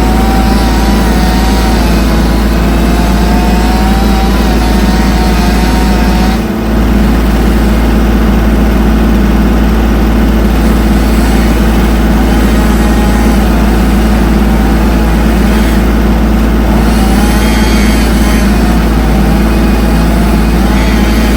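Engine running steadily and loudly, its pitch wavering a little, with a brief drop about six and a half seconds in.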